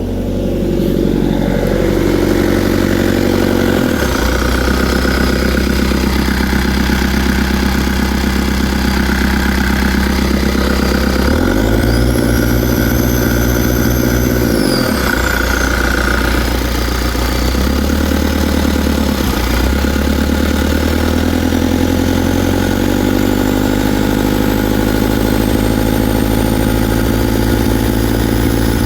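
Caterpillar 3044C-T turbo diesel in a Cat 277B track loader running as its throttle is moved up and down several times, with a high whine that rises and falls with engine speed near the middle. The owner reports that this engine misfires, puffs and smokes at mid throttle, and suspects worn injectors or the injection pump.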